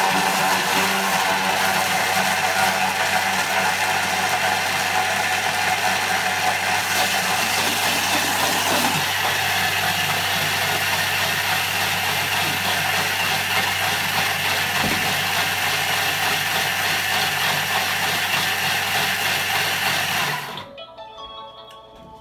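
Thermomix food processor's motor and blade running at speed, chopping and blending whole cucumbers into a purée. The steady, loud running cuts off abruptly about 20 seconds in.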